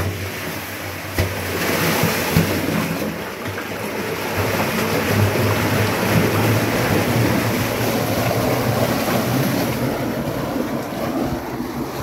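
Sewage water gushing fast through a manhole as the blocked sewer line opens up and starts to flow, a loud steady rushing with a couple of knocks in the first few seconds.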